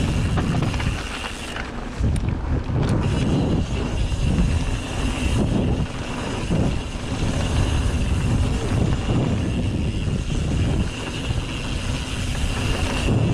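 Wind rumbling on the microphone and mountain bike tyres rolling over the dirt trail, the rumble rising and falling unevenly with the ground.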